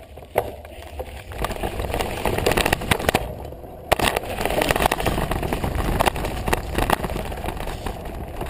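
Bicycle riding over a dirt jump track: wind rushing on the microphone and tyres on loose dirt, with rattling knocks and clicks from the bike. After a brief quieter moment, a hard knock just before four seconds in as the bike lands.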